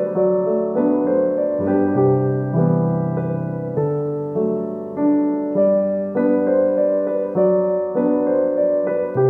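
Background piano music: a slow, even run of chords with new notes struck about every half second.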